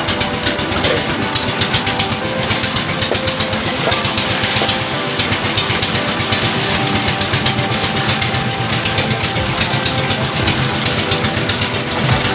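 Engine-driven drum concrete mixer running steadily, its engine beating fast and evenly while the drum turns.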